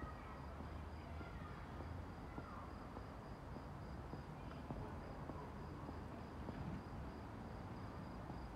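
A cricket chirping steadily, a high-pitched chirp repeated at an even rate, over a faint low rumble of distant traffic.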